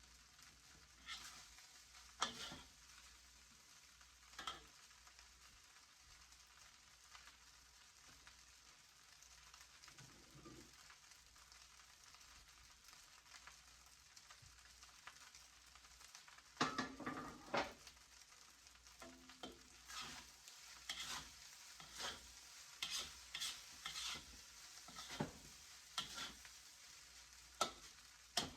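Yellow fried rice frying with a faint sizzle while a utensil scrapes and taps against the pan. The strokes are sparse at first, then come about once a second from a little past the middle.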